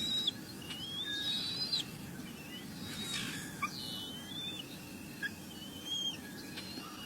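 An animal's high-pitched squeaky calls, repeated several times, each about a second long and some rising slightly in pitch.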